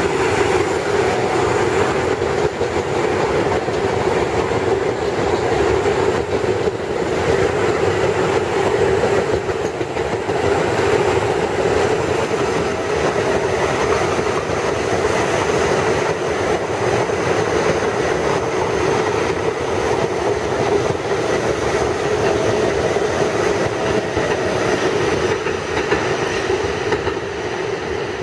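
New York City Subway R68-series cars running through the station: a steady, loud rumble of steel wheels on the rails that eases slightly near the end.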